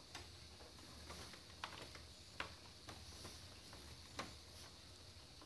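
Bundled PC power-supply cables handled and twisted together against the steel case, giving a few faint clicks, the clearest about four seconds in, over quiet room hiss.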